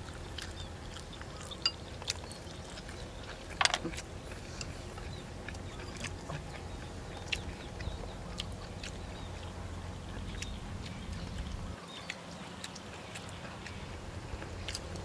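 Eating sounds: boiled chicken being torn apart by hand and chewed, with scattered small clicks and smacks, two sharper ones in the first few seconds, over a low steady background rumble.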